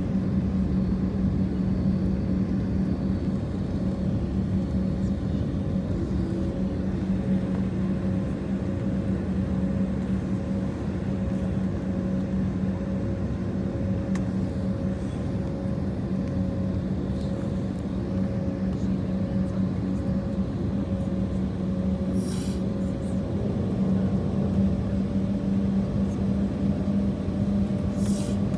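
Jet airliner's engines heard from inside the cabin during taxi: a steady hum with a low drone and a fainter higher tone that rises slightly near the end.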